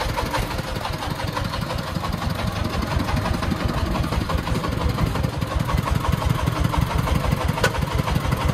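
24-horsepower single-cylinder diesel engine of a three-wheeled công nông truck running steadily with a rapid low thudding as the truck, loaded with cement bags, moves slowly forward.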